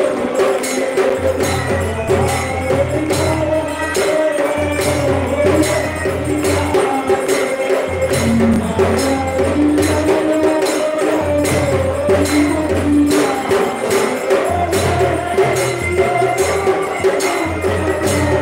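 Aarti music: fast, continuous jingling and clashing of metal hand percussion over steady held tones, with a low pulse that comes and goes.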